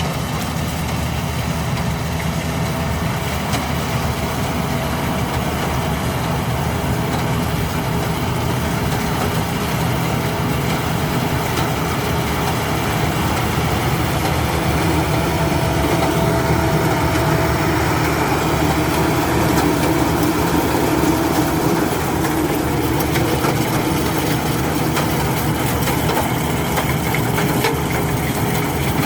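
Rice combine harvester running steadily, its engine and machinery giving a continuous heavy drone with a few steady hums, swelling somewhat louder in the middle.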